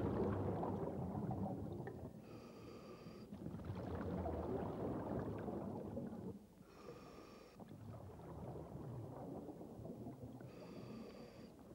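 Scuba diver breathing through a regulator underwater. There are three short hissing inhales with a ringing tone, about four seconds apart, each followed by a longer rush of exhaled bubbles.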